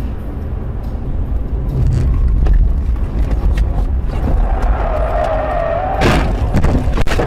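Low road and engine rumble heard inside a car's cabin, then its tyres squealing with a wavering pitch for about a second and a half as the car skids. It ends in a bang about six seconds in as it hits the guardrail, with a second knock about a second later.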